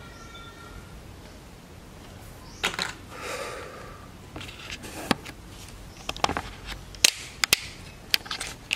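Handling noise on a workbench: a scattered series of sharp clicks and knocks with a brief brushing sound about three seconds in, growing busier toward the end. A faint steady high tone fades out about a second in.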